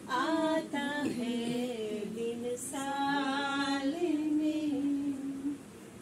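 A woman singing a Raksha Bandhan song about a brother unaccompanied, holding long wavering notes, stopping about five and a half seconds in.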